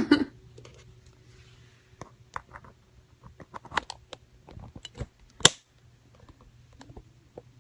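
Scattered light clicks, taps and rustles of handling, with one sharp click about five and a half seconds in.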